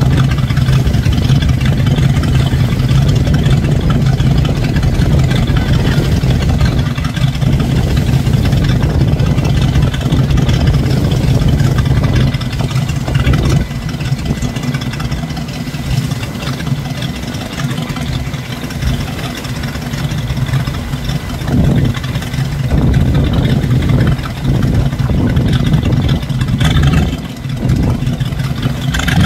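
An engine running steadily at low speed, a low, even hum.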